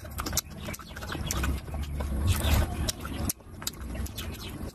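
Close-miked ASMR eating sounds: wet chewing and lip smacking of oily mutton curry and rice eaten by hand, heard as a stream of quick clicks over a low rumble.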